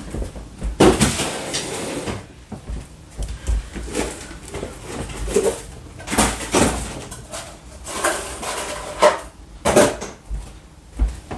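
Irregular knocks and clatter of containers and packets being taken out and set down while a fridge freezer is emptied, with a few louder knocks scattered through.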